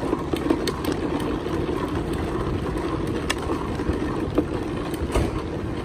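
Steady city street noise at a tram stop: a tram standing at the platform and traffic on the avenue beside it, with a few sharp clicks.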